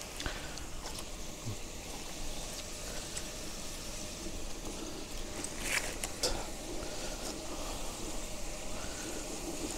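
Burgers, buns and onions sizzling steadily on a Pit Boss Ultimate gas griddle, with a few light clicks and knocks from handling about six seconds in.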